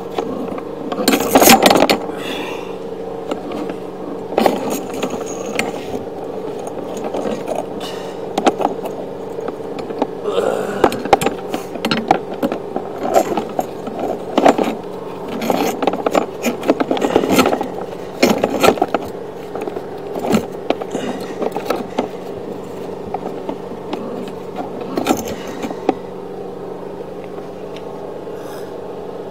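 Sewer inspection camera's push cable and camera head being handled and coiled back into the reel: irregular scrapes, knocks and rattles, the loudest about a second and a half in, over a steady mechanical hum.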